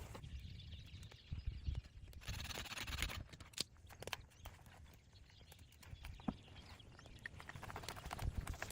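Sticks and branches being handled, knocking together in irregular light knocks, with a longer rustle of brush a little over two seconds in.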